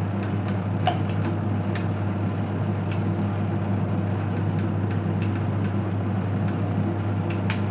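Washing machine motor running steadily, its drum turning to stir the liquid soap mixture, giving a loud, even hum with a few light clicks over it.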